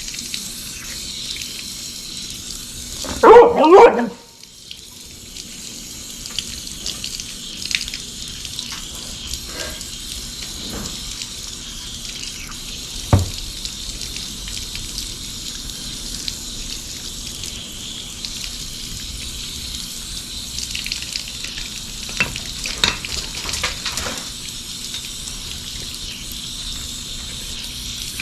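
Water running steadily as parts are rinsed, a continuous hiss. About three seconds in, a brief, loud squeal that slides in pitch cuts across it.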